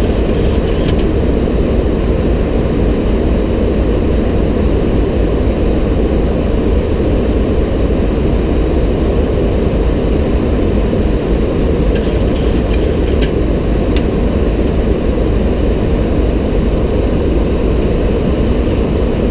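Steady cockpit noise of airflow and engines inside a Boeing 737-800 in flight on approach, with a few faint clicks about a second in and again around twelve to fourteen seconds.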